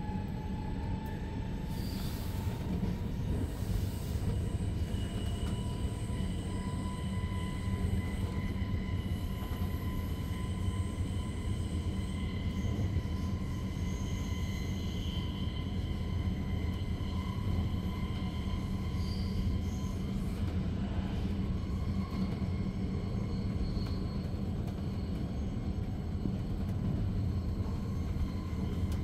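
Re 450 DPZ double-deck S-Bahn train running at speed, heard from inside a passenger coach: a steady low rumble with faint whining tones above it, the lowest of them rising slightly at the start and then holding steady.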